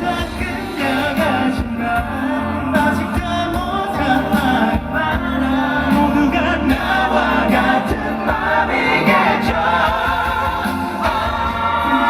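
Live pop ballad performance: sustained singing over band backing, recorded through a concert PA.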